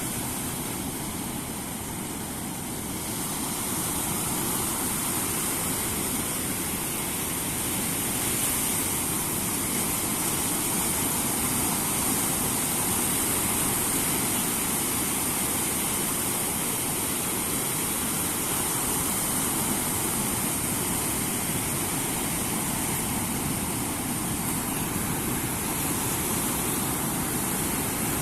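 Steady rushing seashore noise of surf and wind, even throughout, a little softer for the first few seconds.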